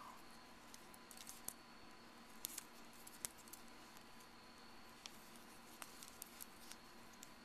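Near silence with a faint steady hum, broken by scattered small clicks and light rustles from hands working an aluminium crochet hook through yarn.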